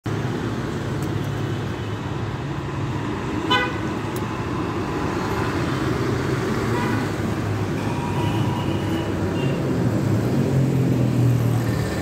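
Street traffic with engines running steadily, and a short, sharp vehicle horn honk about three and a half seconds in. A fainter horn sounds later.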